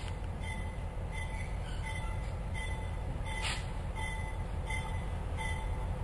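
Diesel locomotive approaching slowly, its engine running with a steady low rumble, while a bell rings about twice a second. A single short click or clank comes about halfway through.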